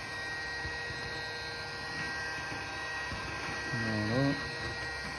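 Hot-air heat gun set to 300 °C blowing steadily: a constant fan rush with faint steady whining tones, heating the phone's edges to soften the waterproof adhesive seal. A short hum of the voice about four seconds in.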